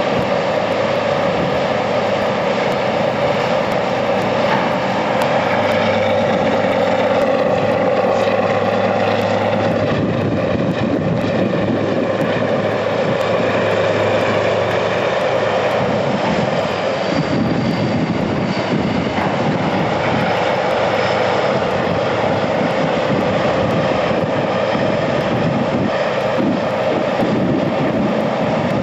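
Diesel engine sound for a scale model Monighan 10W dragline: a steady, loud engine drone whose note changes a few times as the machine works.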